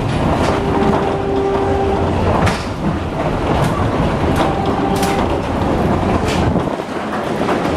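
Philippine National Railways train running: a steady rumble with scattered sharp clacks, and a held tone that sounds about half a second in and again around four and a half seconds.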